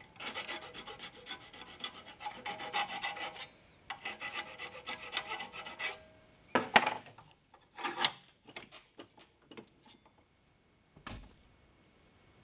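Flat file scraping across a brass hinge knuckle in two spells of quick, short strokes, one of about three seconds and one of about two. Two sharper knocks follow about halfway through, then a few lighter taps and one more knock near the end.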